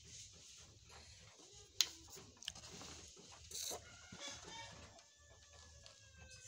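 Chickens clucking faintly in short calls, with a sharp knock a couple of seconds in and a smaller click soon after, as bowls and a spoon are handled.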